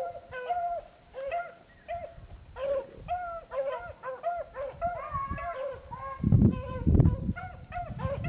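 Several beagle hounds baying in short, repeated calls that overlap one another: the pack giving tongue as it runs a rabbit's scent line. A few loud low rumbles come in a little after six seconds.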